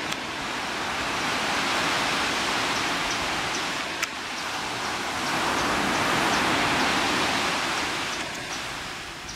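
Ocean surf breaking and washing up a sandy beach: a steady rush that swells, dips, swells again and fades near the end. A brief click about four seconds in.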